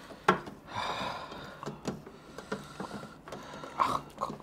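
Eating sounds: fingers mixing rice on steel plates, small clicks and mouth sounds, with a breathy exhale about a second in.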